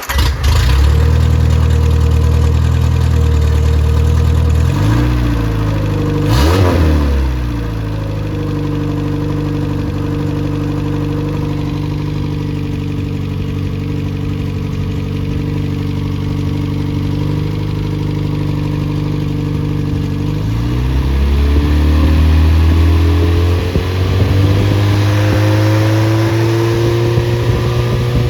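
Freshly rebuilt Triumph Spitfire/MG Midget 1500 four-cylinder engine starting abruptly and running, not yet broken in. It runs at a fast idle, settles to a lower idle about eight seconds in, then is revved up again after about twenty seconds and held at a higher speed.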